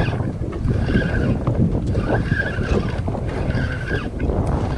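Wind buffeting the microphone over water lapping at a boat's hull, with a short higher-pitched sound recurring every second or so.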